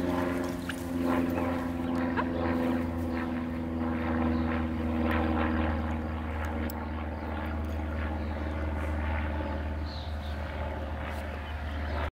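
A steady engine drone of even pitch, its higher tones fading about halfway through, with scattered light clicks.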